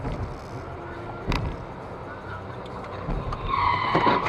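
Road and engine noise heard from inside a moving car, with a sharp knock about a second in. Near the end comes a loud high screech and the impact of one car side-swiping another ahead, an SUV striking a sedan.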